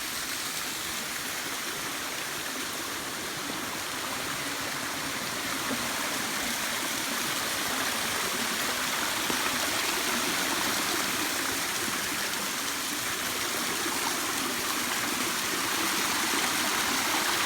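Water of the Jet Khot waterfall rushing and splashing down into its stream, a steady noise that grows gradually louder.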